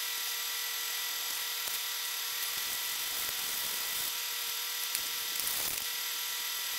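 A steady electrical hum with a thin high whine. Faint rubbing is heard as a paper decal is smoothed onto the metal bandsaw frame, about five seconds in.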